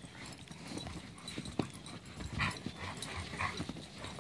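Alaskan Malamutes playing in snow: irregular paw steps and scuffling, with a few short dog sounds in the second half.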